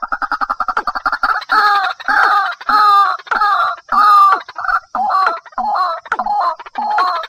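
Calls of rails, from a lure recording of watercock and white-breasted waterhen. A fast run of short clucking notes gives way, about a second and a half in, to loud repeated croaking calls about one every 0.6 s.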